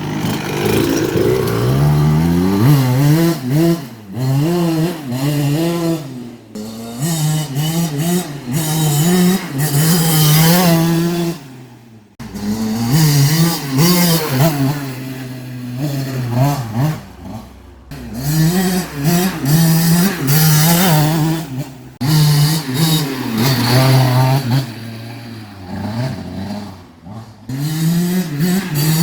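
1990 Suzuki RM80's two-stroke single-cylinder engine being revved hard again and again, its pitch climbing and falling back between blips, on a test run after a water pump rebuild. The sound drops away sharply several times.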